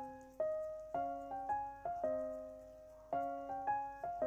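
Background piano music: a gentle melody of single struck notes, each fading away before the next.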